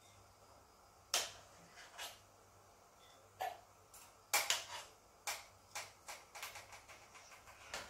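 Metal ladle clinking and tapping against a stainless steel pot while skimming scum off boiling oxtail broth. The clinks are irregular, a few at first, then coming faster in the second half.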